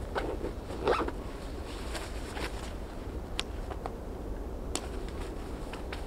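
A zipper pulled in two short rasping strokes in the first second, then a few light clicks, over a steady low rumble of wind on the microphone.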